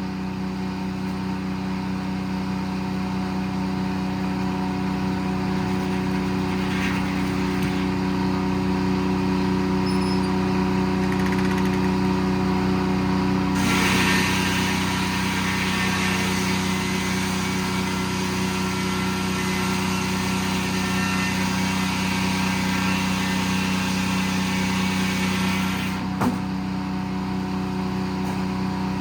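Detroit diesel engine running steadily under load, driving a circle sawmill. For about twelve seconds in the middle, the saw blade cuts through a log with a louder, hissing rush, which stops abruptly.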